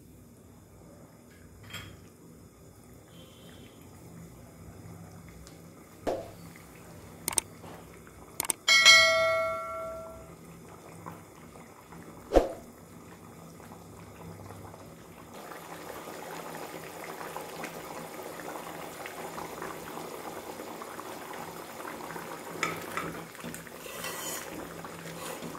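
Prawn curry simmering in a pan on a gas stove, the bubbling getting louder about halfway through, with a spoon stirring near the end. Earlier there are a few sharp clicks and one loud metallic ring, about 9 seconds in, that fades over a second and a half.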